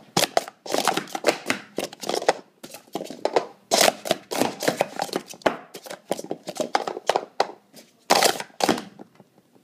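Plastic sport-stacking cups clacking rapidly against each other and the mat as they are stacked up and down in a timed run, the clatter stopping about nine seconds in.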